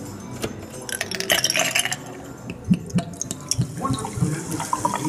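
Old Coca-Cola vending machine's sound effects: a run of clicks and glassy clinks, then pouring liquid, for about three seconds.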